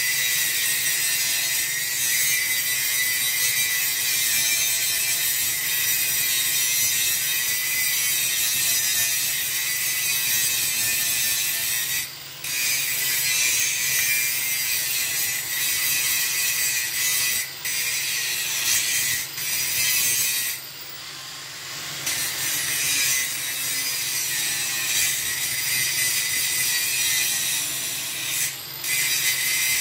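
A power tool working on metal makes a steady, high-pitched grinding noise that dips briefly several times, once for about a second.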